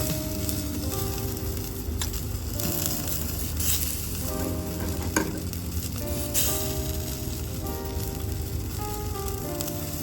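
Pork and onion skewers sizzling on an electric shichirin grill, a steady crackling sizzle with a few brief pops, under light background music.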